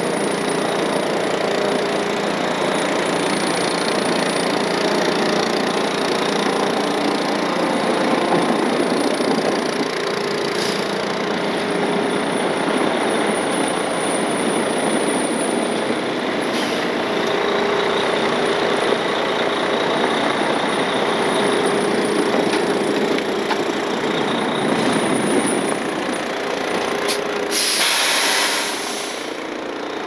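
Heavy-duty tow truck's diesel engine running steadily while it manoeuvres with a pickup on its underlift. Near the end there is a short, loud hiss of air, typical of the truck's air brakes.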